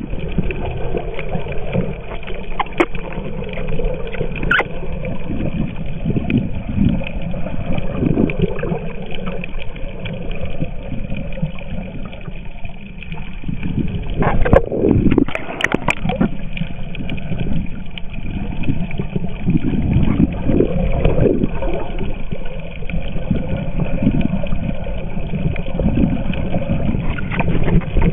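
Muffled underwater sound as picked up by a camera in a waterproof housing: a continuous low rumble of moving water that swells and fades, with a few sharp knocks on the housing.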